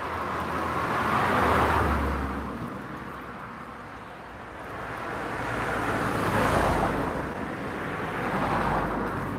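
Cars passing on the road, their tyre and engine noise swelling and fading: one about a second and a half in, then two more in the second half.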